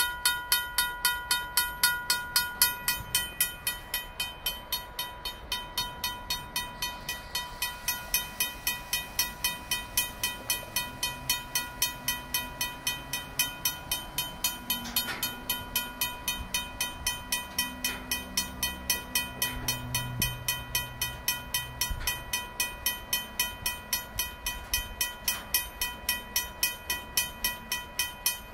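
RACO mechanical railroad-crossing bell ringing steadily, about three to four strokes a second, as the crossing signal stays active for the train. A low drone runs under it for several seconds in the middle.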